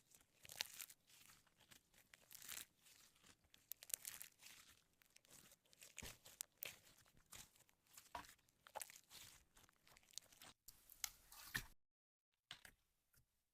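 Slime being mixed and worked by hand: a quiet, continuous run of sticky crackling, tearing and popping noises that stops about two seconds before the end.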